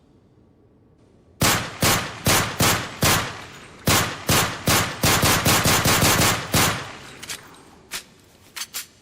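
Gunfire sound effect. After a short pause, a string of sharp shots comes at about two a second, closing up into a rapid burst, then a few fainter, scattered shots. Each shot trails off briefly.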